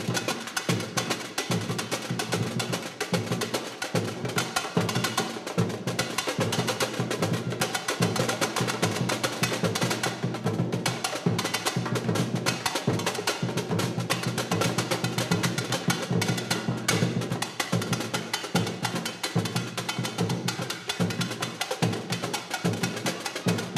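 Samba school percussion (a bateria) playing a steady, dense rhythm of drums and sharp percussion strokes, with no singing.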